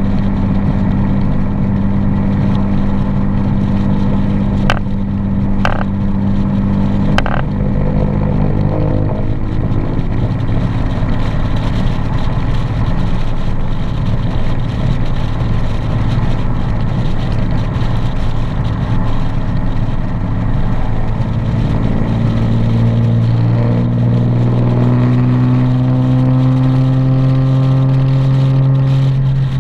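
Nissan 370Z's 3.7-litre V6 running steadily while driving, with three sharp clicks about five to seven seconds in. Near the end the engine pitch rises as the car accelerates.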